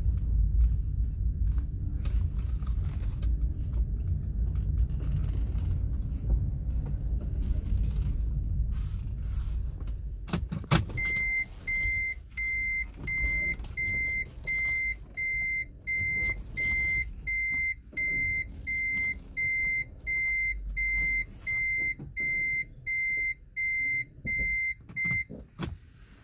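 Low rumble of a car on the move, heard from inside the cabin, dies away after a click about eleven seconds in. Then the car's electronic warning beeper sounds a steady, even beep about one and a half times a second, stopping shortly before the end.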